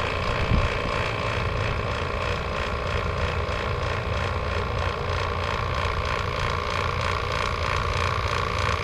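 A 6 CFM Robinair vacuum pump running steadily with a constant mechanical hum. It is evacuating an air conditioner's refrigerant line set early in the pull-down, while the vacuum is still far from the 500-micron target.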